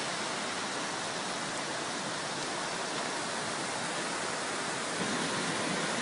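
Torrential rain and a fast-flowing flash flood torrent: one steady, dense rushing hiss of water.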